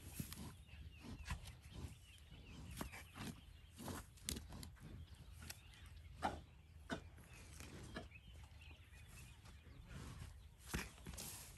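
White rhinos feeding on dry hay: faint, irregular crunching, tearing and rustling, with a few sharper snaps.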